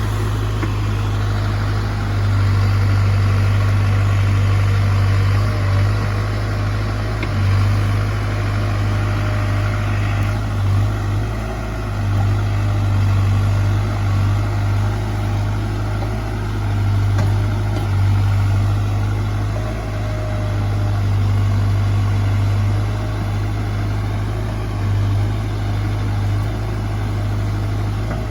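Diesel engine of heavy earthmoving equipment running steadily at an even speed, with small rises and falls in level.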